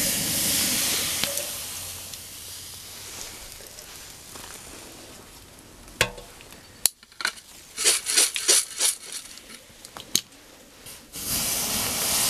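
Water poured from a watering can onto the hot char in a TLUD gasifying stove, hissing and sizzling as it flashes to steam: the fire is being quenched to save the biochar. A loud hiss comes at once and fades over a couple of seconds. Sharp clicks and crackles follow, and a second loud hiss comes near the end as more water goes in.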